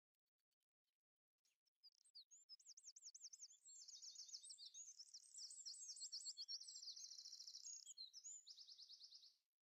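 A small bird chirping in fast, high trills of quickly repeated rising and falling notes, starting about a second and a half in and stopping shortly before the end.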